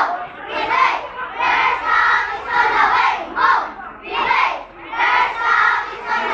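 A group of children shouting a cheer together in unison, in short rhythmic bursts about every half second.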